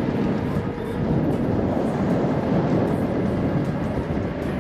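Steady rush of wind and road noise while riding a Begode Master V4 electric unicycle, with a faint steady tone underneath.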